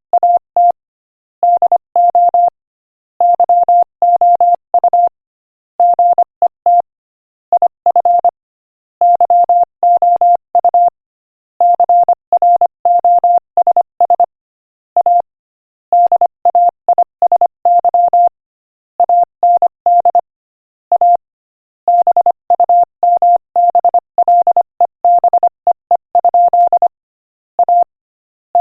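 Morse code sent at 25 words per minute as a single steady beep keyed on and off in short dots and longer dashes. Short gaps separate letters and longer pauses separate words, spelling out a joke.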